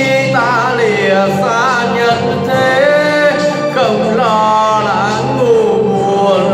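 A man singing into a handheld microphone over backing music, holding long notes that waver with vibrato.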